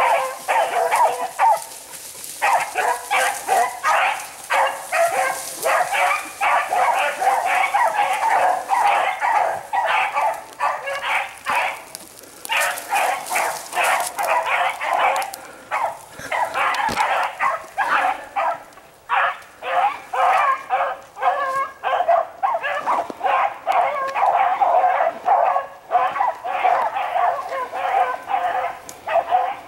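Rabbit beagles giving tongue on a running rabbit: rapid, overlapping barks and bays that go on almost without a break.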